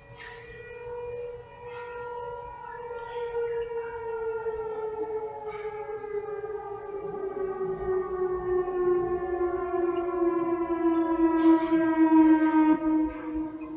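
Whelen Vortex outdoor tornado siren sounding its alert tone in a monthly test. It is one long tone whose pitch slides slowly down as it winds down, and it grows louder toward the end.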